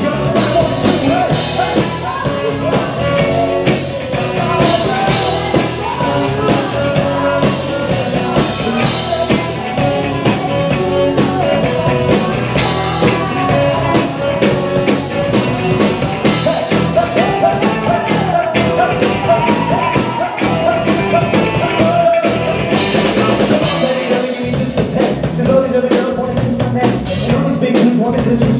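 Live rock band playing a song, with a drum kit and a singer over the band.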